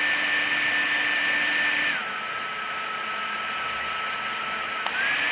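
Electric blower motor running as the inverter's test load, a steady whoosh with a whine; about two seconds in its pitch steps down and it gets quieter, as at a lower setting. A single click near the end, and the whine rises again just after it.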